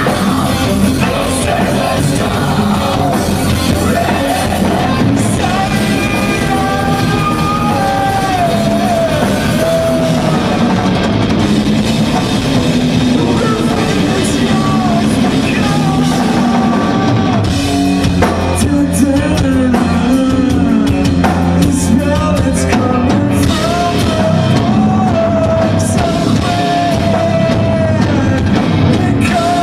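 A rock band playing live and loud: electric guitar and drum kit, with a singer's voice over the top.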